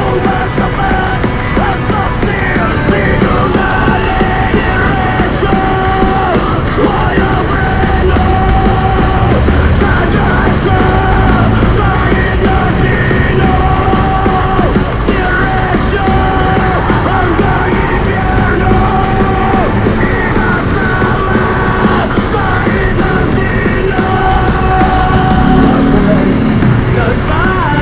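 Loud heavy rock music with yelled vocals, playing continuously.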